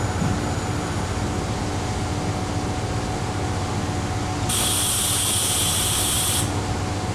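Amtrak Amfleet passenger cars standing at the platform with a steady hum from their air-conditioning and electrical equipment. About four and a half seconds in, a burst of air hisses from the train for about two seconds.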